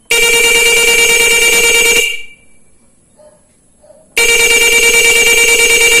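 Motorcycle disc horn, wired through an interrupter relay and a relay that feed it straight from the battery, sounding two long blasts of about two seconds each, a steady high-pitched tone. Very loud, boosted by the relay's direct battery supply.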